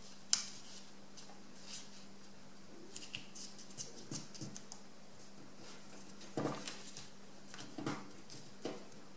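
A sheet of A4 paper rustling and crinkling as fingers fold a corner down and press the crease against a tabletop: a few short, scattered rustles and taps, the sharpest just at the start, over a faint steady hum.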